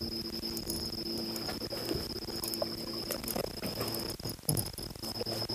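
Crickets trilling in one steady high tone, with scattered short clicks and rustles as a freshly landed hairtail and the fishing tackle are handled.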